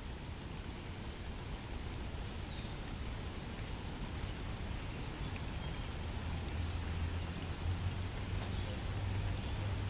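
Steady hiss of heavy rain falling, with a low steady hum underneath that grows louder from about six seconds in.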